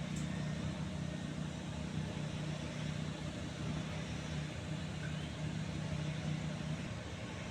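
A large engine running steadily at an even speed: a constant low drone with a hum that does not rise or fall.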